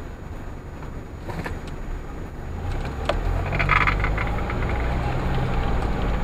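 Car engine and road rumble heard from inside a moving car as it pulls away from a stop, growing louder about halfway through, with a few light clicks and a brief rattle near the middle.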